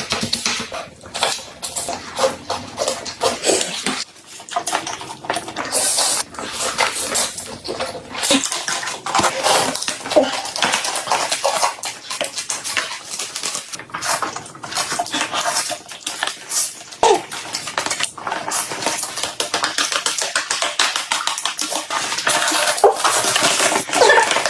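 Close-miked eating: rapid, irregular chewing, crunching and wet mouth smacks, with a few clinks of cutlery or dishes.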